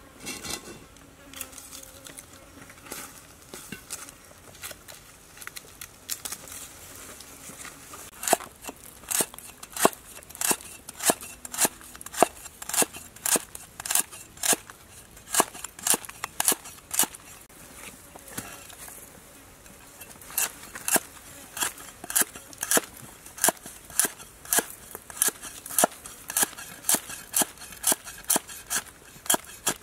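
Cleaver chopping on a wooden chopping board, slicing through lemongrass stalks: a long run of sharp knocks at about two a second. The strokes are faint at first and become loud and regular about eight seconds in.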